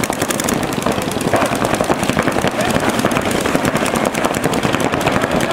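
Several paintball markers firing rapid, overlapping strings of shots.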